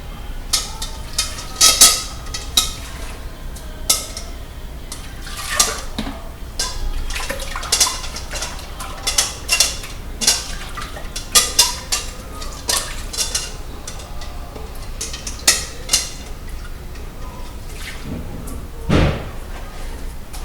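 Dishes and cutlery clinking and clattering as they are handled and set down, many sharp clinks with brief ringing, and a duller knock near the end.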